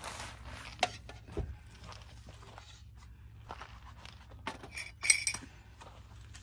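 Light knocks and clinks of hard objects being handled, with a brighter run of clinks about five seconds in.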